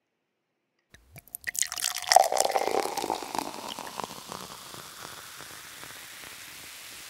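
Sprite poured from a can over ice into a glass mug, starting about a second in: splashing with ice cubes crackling, then a steady fizzing hiss from the carbonated foam that slowly fades.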